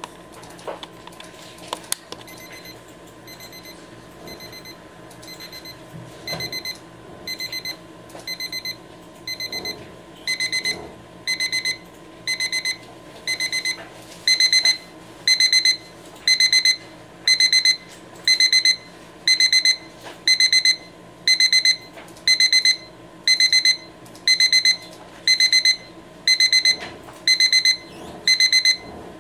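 Electronic beeper of a Rhythm alarm clock going off in its four-stage progressive alarm: bursts of rapid high beeps about once a second, each stage louder and longer than the last until it reaches full volume. A few clicks come just before the beeping starts.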